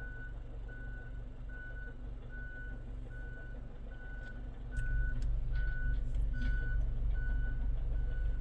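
Reversing alarm on a working vehicle, beeping steadily at one pitch about once every 0.8 seconds. Under it is a low rumble that gets louder about five seconds in, with a few sharp knocks.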